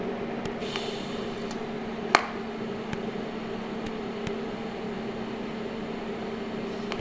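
Steady machine hum in a welding shop, with one sharp click a little over two seconds in.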